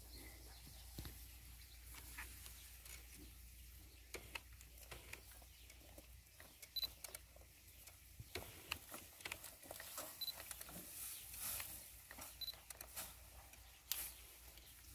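Faint rustling and crackling of freshly cut alfalfa being carried and pitched onto a tractor trailer, with scattered light clicks and a few brief high peeps.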